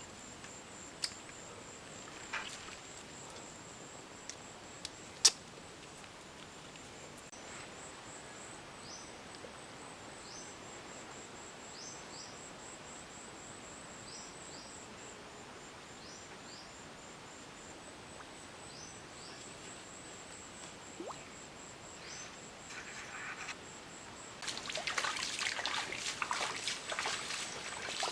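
Outdoor creek ambience: a steady, high, pulsing insect trill with short bird chirps every second or two and a few sharp clicks. Near the end, water splashing and trickling comes in louder.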